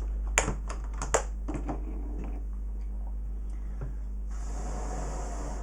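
Light clicks and taps of small tools being handled on a repair bench, sharpest in the first second. About four seconds in a short hiss starts, under a steady low hum.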